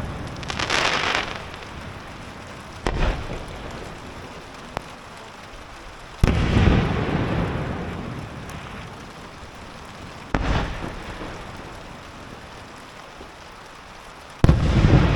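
Aerial firework shells bursting: a crackling shower of sparks in the first second, then four heavy booms about every four seconds, each trailing off slowly into a rumbling fade.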